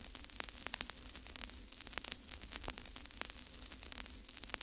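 Faint crackle: many irregular sharp clicks over a low hiss and a steady low hum.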